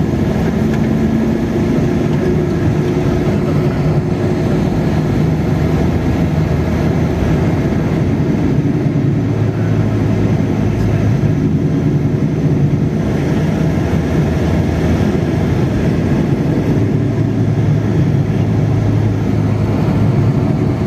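Steady engine and road noise of a vehicle driving along a highway, with a low hum that swells a little twice.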